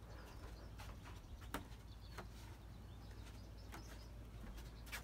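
Quiet outdoor ambience: a faint low rumble, a few soft scattered clicks, and faint distant bird calls.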